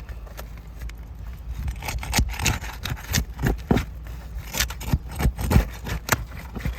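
Brittle asphalt roof shingles being torn loose: a run of irregular scrapes, cracks and tearing sounds as the shingles, stuck together, rip apart.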